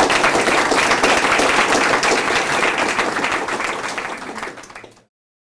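A small audience applauding. The applause fades toward the end and is cut off abruptly about five seconds in.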